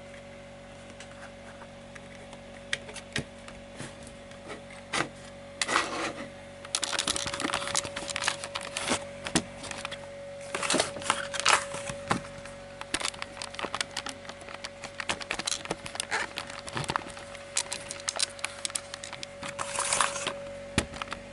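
Handling noise: rustling, crinkling and irregular clicks of hands working a paper battery box, a charging cable and a plastic dual battery charger, busier from about seven seconds in. A steady thin tone runs underneath.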